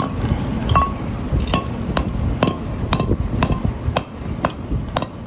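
Repeated hammer strikes on a removed catalytic converter, about two a second, the first few with a short metallic ring. The converter is clogged: the stopped-up catalyst is the cause of the car's loss of power.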